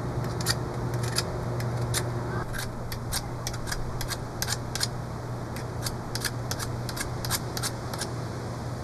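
Knife whittling a hardwood dart foreshaft: quick, irregular shaving strokes, a few a second, over a steady low hum.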